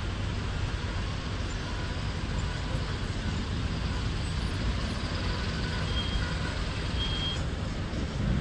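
Steady low rumble of motor vehicle engines running, with two faint short high beeps about six and seven seconds in.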